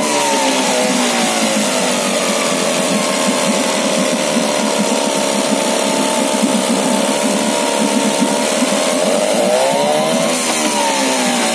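Tohatsu outboard motor running on test after a carburettor overhaul. The revs fall away at the start, hold steady, then rise briefly about ten seconds in and drop again.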